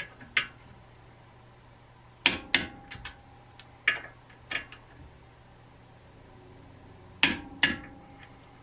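Torque wrench tightening front brake caliper bolts to 103 foot-pounds: sharp metallic clicks with a short ring. The loudest come in two pairs about five seconds apart, with lighter clicks between.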